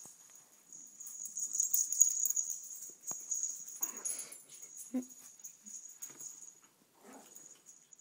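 Two small dogs playing, with short scuffling bursts about four and seven seconds in and a brief low growl-like sound about five seconds in, over a steady high-pitched whine.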